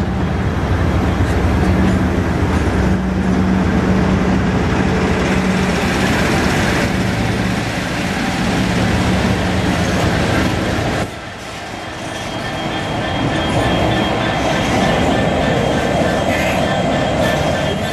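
Diesel-hauled train rolling slowly past along the platform: carriages going by with a steady low engine hum, then a grey BR-liveried diesel locomotive and a GBRf Class 66 passing with their engines running. The sound dips briefly about two-thirds of the way through.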